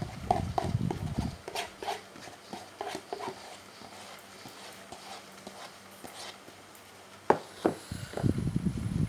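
Close-up eating sounds of a person eating ramen noodles: wet chewing with sharp mouth clicks, a quieter pause in the middle, then two sharp clicks and more chewing near the end.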